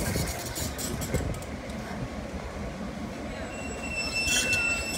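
Heritage passenger carriages of a train rolling slowly past along a station platform, the wheels rumbling on the rails with a few clicks in the first second or so. A steady high squeal sets in near the end.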